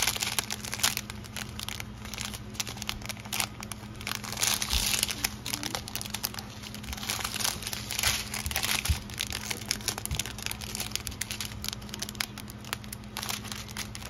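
Thin clear plastic bags of diamond-painting drills crinkling as they are handled and unfolded, in an irregular crackle that swells twice.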